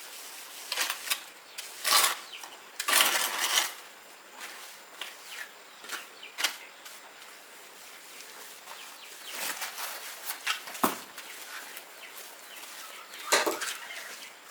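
Intermittent scrapes and knocks from handling materials, with stronger bursts about two and three seconds in and again near the end.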